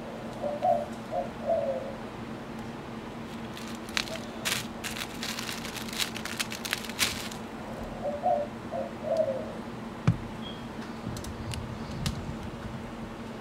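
A dove cooing twice, a short three-note phrase each time, some seven seconds apart. In between comes a run of sharp crackles from the tissue paper and dry roots being handled.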